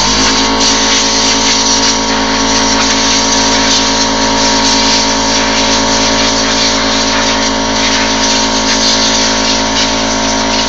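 An air compressor's motor starts right at the beginning and runs with a steady hum, its pitch settling within the first half second, under the continuous hiss of compressed air from a blow gun cleaning dust out of a desktop PC case.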